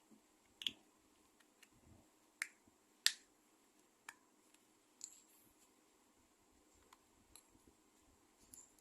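Sparse sharp clicks and light taps of small hard objects being handled, about eight in all, irregularly spaced, the loudest about three seconds in.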